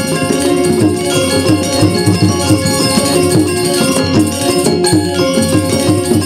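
Gamelan music accompanying the dance: metal percussion instruments ringing many sustained tones over a busy beat of drum strokes.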